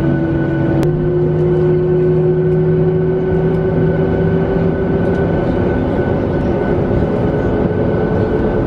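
Boeing 737 jet engines heard from inside the cabin: a steady whine over a loud rushing noise, its pitch slowly rising as the engines spool up for take-off. A brief click about a second in.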